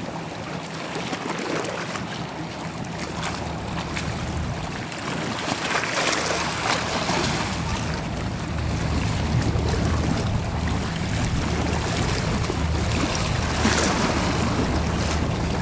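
Batam Fast 12 high-speed passenger ferry passing: its engines give a steady low drone that grows louder about halfway through, over the wash of water along the hull and wind on the microphone.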